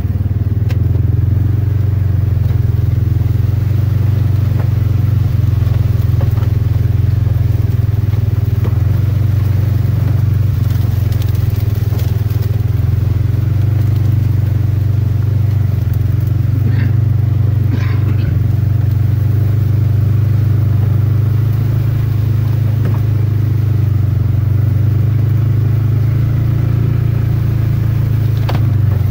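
Ranger utility vehicle's engine running steadily as it drives through tall weeds, a constant low drone.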